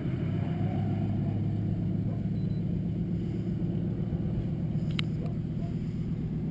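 DC-3's twin radial engines droning steadily in the distance, a low even drone, with a short sharp click about five seconds in.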